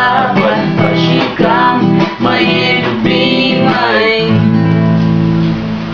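Acoustic guitar strumming under a sung final chorus line; about four seconds in the voice stops and the last guitar chord is left ringing and slowly fading as the song ends.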